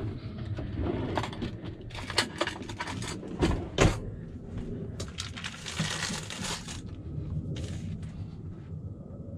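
Knocks, clicks and clatter of kitchen things being handled on a camper's counter and stove, the loudest knock a little under four seconds in, with a hiss lasting about a second around six seconds in, over a low rumble.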